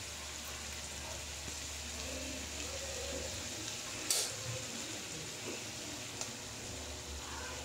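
Oil sizzling steadily in a frying pan of chicken adobo, with one brief, sharper crackle about four seconds in.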